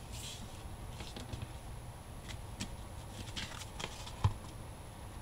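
Faint rustling and light taps of hands smoothing and handling a paper-covered cardboard divider on a cutting mat, with one louder tap about four seconds in.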